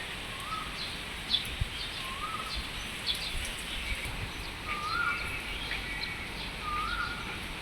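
A bird repeats a short call that rises and then drops, about every two seconds, with higher chirps from other birds, over a steady hiss of rain.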